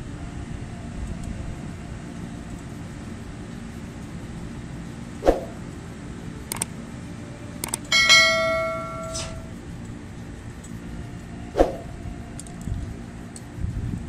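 A bell-like notification chime rings once about eight seconds in and fades over a second or so, with a couple of small clicks just before it. This is the sound effect of an on-screen subscribe-button animation. Two sharp knocks come about five and eleven seconds in, over a steady background rumble.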